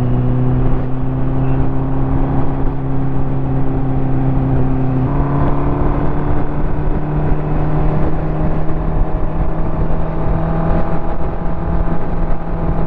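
Ducati motorcycle engine running under way, with wind and road noise. The engine note changes abruptly about five seconds in, then climbs slowly as it pulls.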